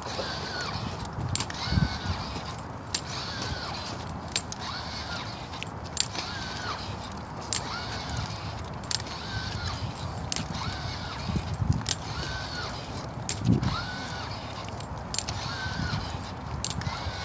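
Powered Ekso robotic leg exoskeleton walking: its electric joint motors whine up and down once per step, about one step every second and a half, with a sharp click as each step lands.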